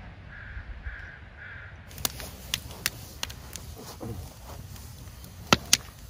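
A bird calls three times in quick succession, then a wood campfire crackles with scattered sharp pops, two of them loud just before the end.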